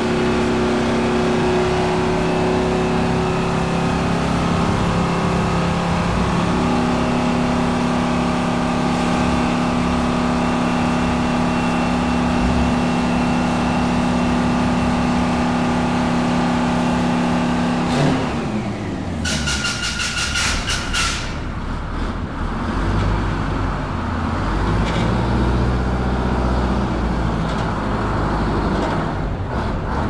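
Bus engine idling with a steady hum. About two-thirds of the way through, the engine note drops suddenly and a quick run of high beeps follows. The engine then runs lower and swells as the bus pulls away.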